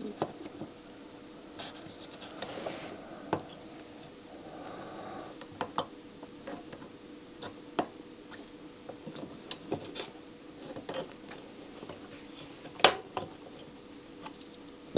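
Soldering iron tip and solder wire working on a circuit board's solder side: faint scratching and small scattered clicks, with a brief soft hiss about two and a half seconds in and a sharper click near the end. A faint steady hum runs underneath.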